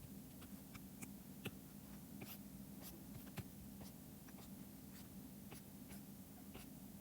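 Faint, irregular taps and short scratching strokes of a stylus on a drawing tablet while drawing, over a steady low hum.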